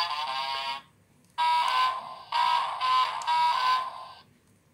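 Electronic sound module of a Play-a-Sound book playing short buzzy electronic notes from its small speaker as its buttons are pressed. One phrase ends about a second in, and after a short pause a run of stepped notes plays until shortly before the end.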